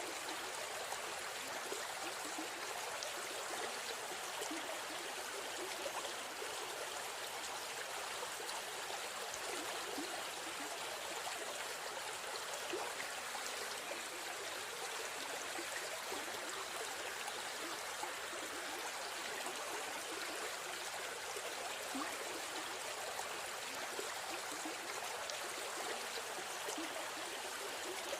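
River stream flowing and trickling over stones, a steady rushing with small gurgles.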